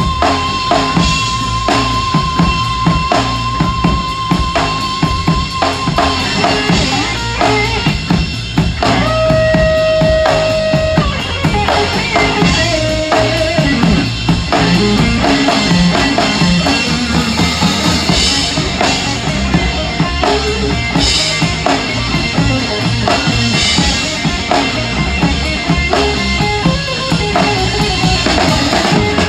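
A rock trio playing live, with the drum kit loudest: a large 26-inch bass drum, snare, toms and big ride cymbals driving a steady beat under amplified guitar. A held high note sounds through the first six seconds, and another from about nine to eleven seconds in.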